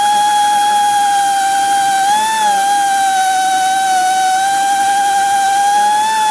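Gison GPD-231 air-powered drill's pneumatic motor running with a steady high whine, its pitch rising briefly about two seconds in and dipping slightly later.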